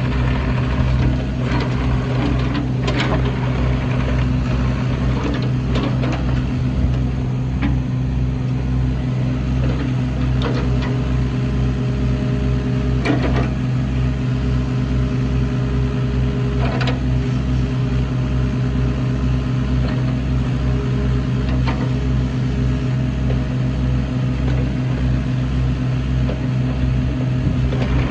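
Kubota U27-4 mini excavator's three-cylinder diesel engine running steadily, with a few sharp knocks and clunks scattered through and a faint whine that comes and goes in the middle.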